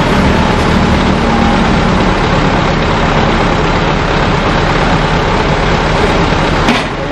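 Engine of a Toyota Kijang Super–based mini tourist train running steadily at low revs as the vehicle creeps forward, with one sharp click near the end.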